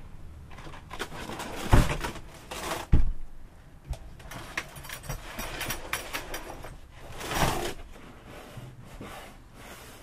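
Hand demolition of water-damaged paneling in a motorhome's over-cab bunk: two sharp knocks about two and three seconds in, scattered clicks and rustling, and a half-second scraping rasp near the end as lining and debris are pulled loose.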